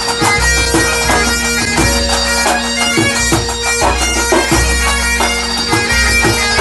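A Breton pipe band (bagad) playing: bagpipes carrying a melody over a steady drone, with regular drum beats.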